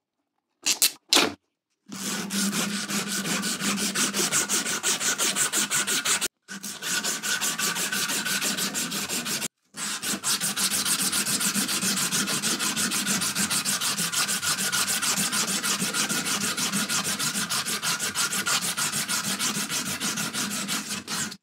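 Two short, louder sounds about a second in, then a 240-grit aluminium oxide abrasive strip rubbed back and forth around the metal handle of a Record No. 52 vice in rapid, even strokes. The strokes stop briefly twice, hand-polishing the handle down.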